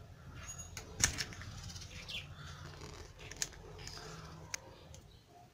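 A blade scraping and cutting the plastic insulation off a solid copper electrical wire: faint, scratchy scrapes with sharp clicks scattered through, the loudest about a second in.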